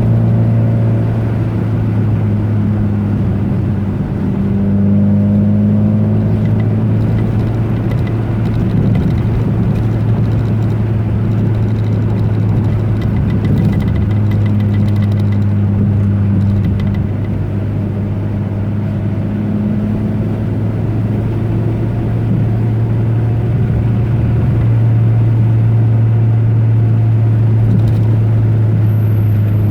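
A motor vehicle driving: a steady engine drone with road noise, its pitch shifting slightly a few times as the speed changes.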